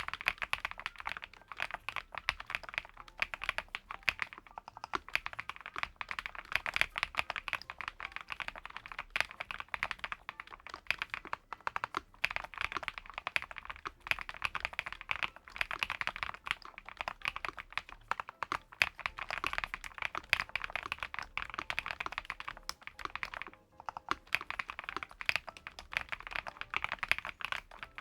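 Continuous fast typing on an ATK VXE V75PRO gasket-mount mechanical keyboard with PBT double-shot keycaps: a dense stream of keystroke clacks, broken once by a short pause late on.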